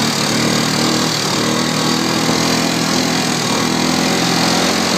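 ATV engine running at a steady speed while driving over rough grassland, with a constant drone.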